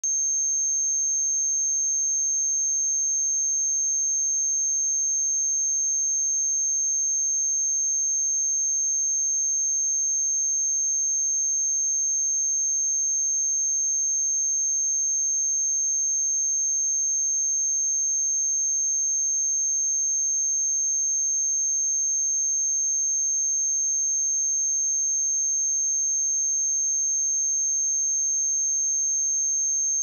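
Steady 6374 Hz sine-wave test tone: one pure, high-pitched pitch held unchanged at a constant level.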